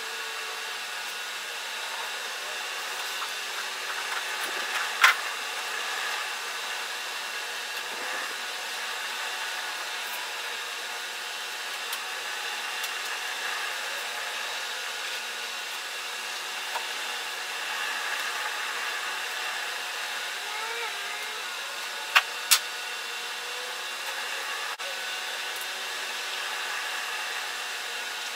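Steady background hum, with a sharp tap about five seconds in and two quick taps a little past twenty seconds, from a hand tool worked along an epoxy-packed seam on a plywood boat hull.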